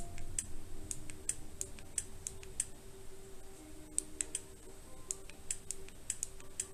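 Buttons on a cheap action camera clicking irregularly, two to four presses a second, as its settings menu is stepped through, with a pause of about a second midway.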